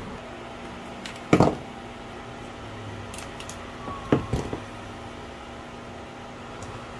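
Tools and wiring parts handled on a workbench: one loud knock about a second and a half in, then a short cluster of clicks and knocks around four seconds, over a steady background hum.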